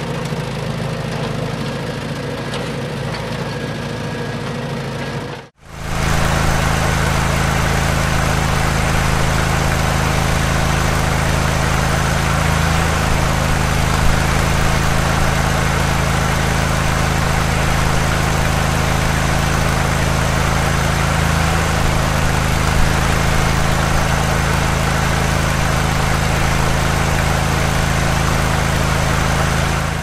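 A heavy construction-machine engine idling steadily with a low, even hum. It begins about six seconds in, right after a fainter, different sound cuts off.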